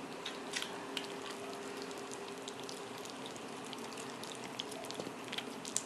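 Several kittens eating wet canned cat food together from a plate: soft, irregular wet smacking and chewing clicks.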